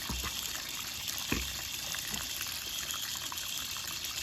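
Running water pouring steadily as a grimy antique brass light fixture is rinsed of dust, rust and nicotine tar, with a light knock about a second in.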